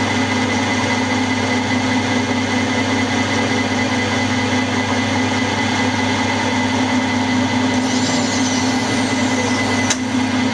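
Milling machine running steadily while a 60-degree dovetail cutter cuts the bedway edge of a model lathe bed. Near the end the cutter runs off the end of the part, with a brief high sweep and one sharp click.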